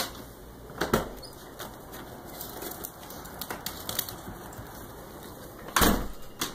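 Scattered knocks and thumps of household handling, with the loudest, heaviest thud about six seconds in.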